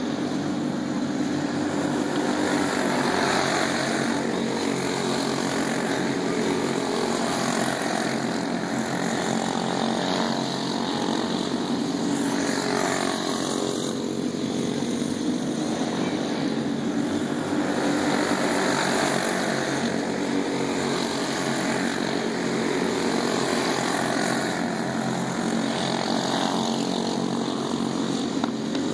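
A pack of dirt-oval racing go-karts with small single-cylinder engines buzzing continuously around the track. The sound swells and fades every few seconds as the pack comes past and moves away.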